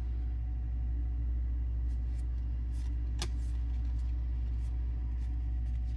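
Steady low hum, with faint soft clicks and flicks of baseball trading cards being slid one behind another by hand, the sharpest a little past halfway.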